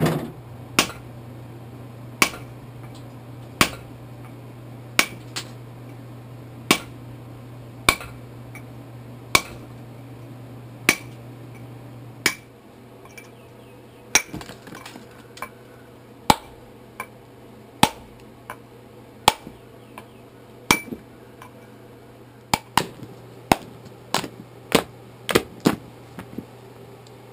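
Hammer striking a chisel held against a rough stone to shape it: sharp metallic blows, about one every second and a half, coming quicker and closer together near the end.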